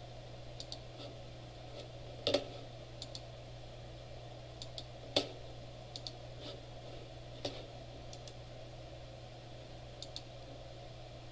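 Computer mouse clicking: scattered single and double clicks, with three louder knocks about two, five and seven and a half seconds in, over a steady low hum.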